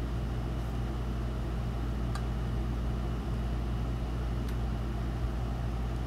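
Steady low hum of a running motor or appliance, with two faint ticks about two seconds and four and a half seconds in.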